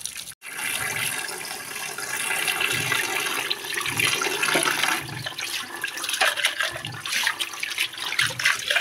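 Kitchen tap running full onto dishes in a sink while cups are rinsed under the stream. A few light clinks of crockery come in the second half.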